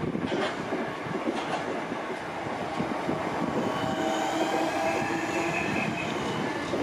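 Southeastern electric multiple-unit train running past along the platform, its wheels clacking over the rail joints. A steady electric whine joins in about four seconds in.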